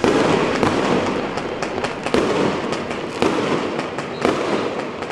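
Fireworks display going off: dense, continuous crackling and popping, with a few louder bangs spread through it.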